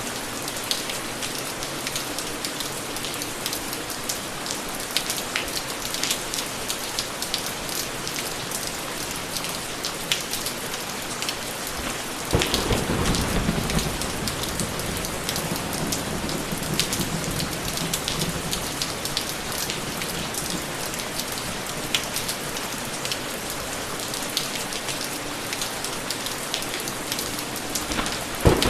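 Steady rain falling, with individual drops ticking. About twelve seconds in, a rumble of thunder breaks in and dies away over several seconds, and another begins at the very end.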